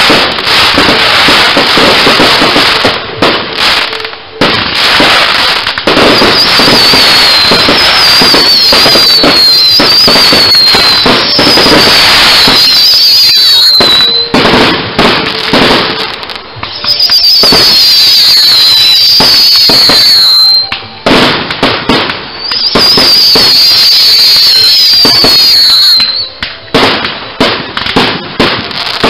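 Fireworks display: firework cakes firing a dense, very loud barrage of bangs and crackle. Three spells of shrill falling whistles, several in quick succession, come from about six seconds in, and the barrage breaks off briefly a few times.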